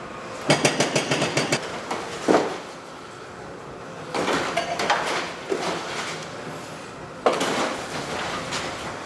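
Demolition excavator breaking up a concrete building frame: three bursts of rapid, clattering knocks and breaking concrete, each lasting a second or two.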